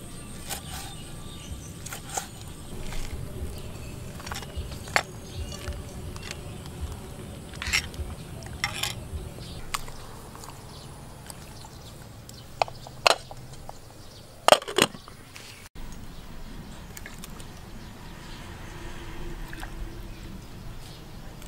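Cow tripe being prepared: scattered sharp clicks and knocks from a knife on a wooden cutting board and from tripe handled in a metal pot, the loudest a quick cluster of clinks a little past the middle. A steady low outdoor background runs underneath.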